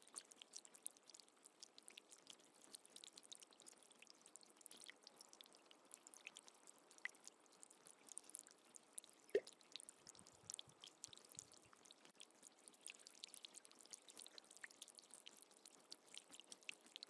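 Faint water dripping, a steady scatter of small, irregular drips, with one louder drip about nine seconds in.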